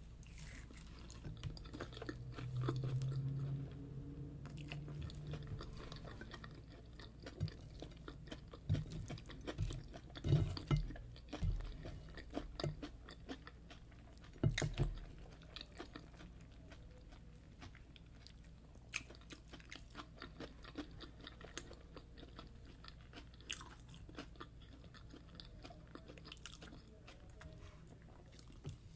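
A person chewing and biting fried yam with egg sauce close to the microphone: moist chewing with scattered crisp crunches, busiest in the middle. A short low hum comes a few seconds in.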